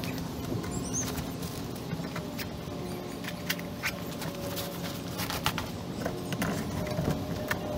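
Irregular small clicks, taps and rustles as canvas and nylon military gear, canteen pouches and covers, is handled and set down on a perforated metal picnic table, over a steady low background rumble.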